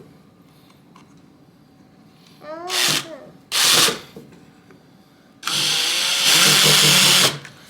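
Power drill driving a screw into the wooden shelf panels: two short bursts, then a longer steady run of nearly two seconds that starts about five and a half seconds in.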